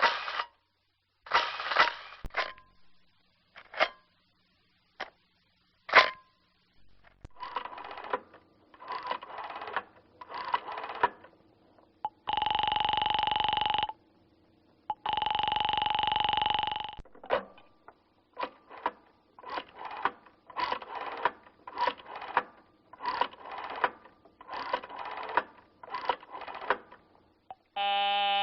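A run of telephone sound effects: a few sharp clicks first, then groups of short dialing bursts. Next come two long, steady electronic phone tones of about two seconds each, then a long series of quick dialing bursts, and a buzzing ring right at the end.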